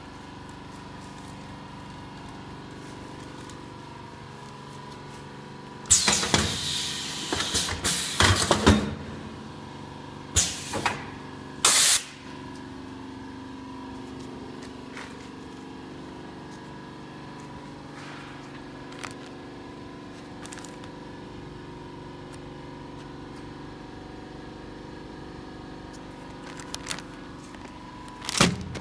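Diaper pressing and packing machine running with a steady hum, broken by loud hisses of released compressed air. The longest lasts about three seconds, starting some six seconds in; short ones follow around ten to twelve seconds in, and another comes near the end.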